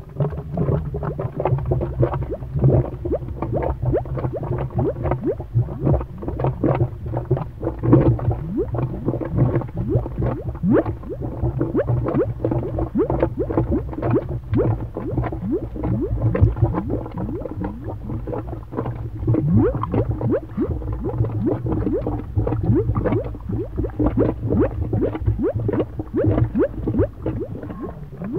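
Comedy, cartoon-style lava-bubbling sound effect: a dense, continuous stream of quick rising bubble pops and gurgles over a steady low rumble.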